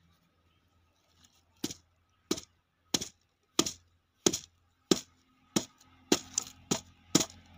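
A hammer repeatedly striking a hardened, dried clay casing. There are about a dozen sharp blows, starting about two seconds in at roughly one every two-thirds of a second and quickening near the end.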